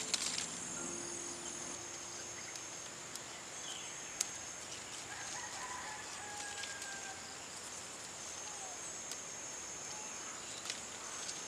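Rural outdoor ambience: a steady high-pitched insect drone with faint bird calls, broken by a few light clicks.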